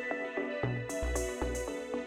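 Background electronic music: sustained synth notes over a steady low beat that comes in about half a second in.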